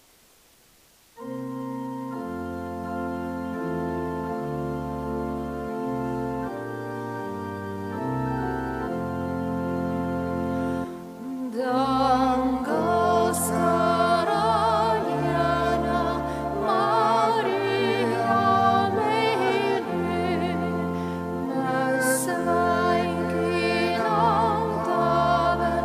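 A church organ begins about a second in, playing sustained chords over a stepping bass line. About eleven seconds in, singing with a strong vibrato joins it: the processional entrance hymn opening the Mass.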